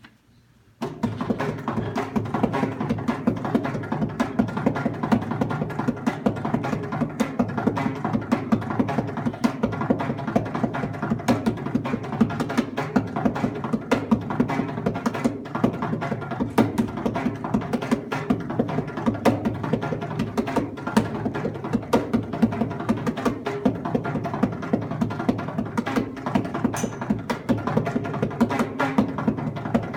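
Mridangam, the double-headed South Indian barrel drum, played solo by hand: a fast, dense run of strokes with ringing pitched tones, starting about a second in and going on without a break.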